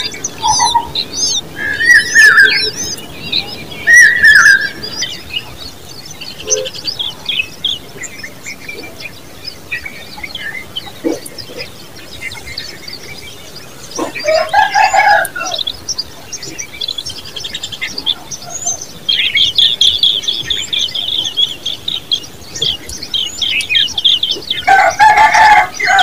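Common babblers calling at the nest: loud falling chirps in the first few seconds, a harsh call about halfway through and again near the end, and a long run of rapid high chittering in the last third.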